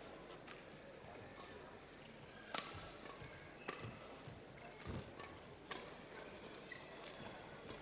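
Badminton rackets striking a shuttlecock in a doubles rally: a handful of sharp clicks about a second apart over a low steady hiss.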